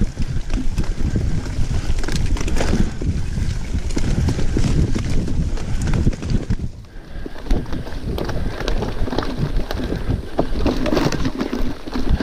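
Specialized Epic Comp full-suspension mountain bike ridden fast over a bumpy forest dirt trail: a steady clatter of short knocks and rattles from the bike and its tyres, with wind rumbling on the microphone. The noise drops briefly about seven seconds in.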